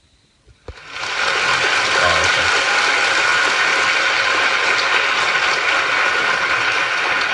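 Audience applauding in a hall. It starts suddenly about a second in and holds steady and loud.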